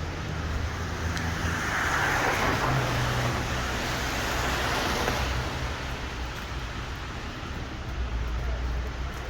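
A car passing on a rain-wet street: the tyre hiss swells and fades over a few seconds, with low engine and traffic hum underneath.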